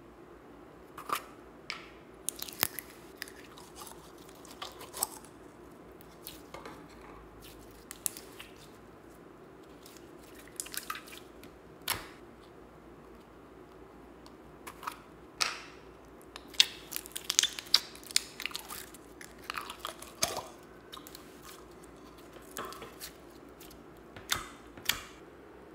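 Slime being squeezed out of tubs and pressed and handled by hand in a bowl: irregular sticky clicks and wet squelches, coming thickest about two-thirds of the way in.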